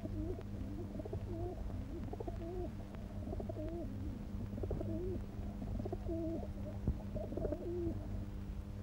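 Pigeons cooing, a continuing series of low, rolling coos, over a steady low electrical hum.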